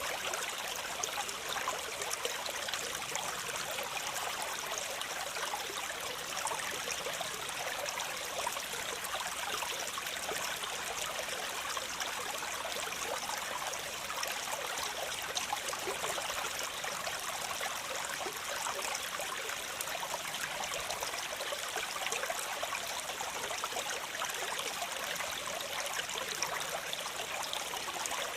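Waterfall: a steady, unbroken rush and splash of falling water, mostly a bright hiss with little low rumble.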